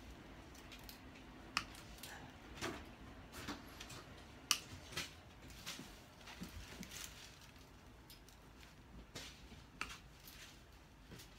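Sparse, faint clicks and light taps as wire grid panels are fastened with plastic zip ties and the tie tails are snipped with nippers.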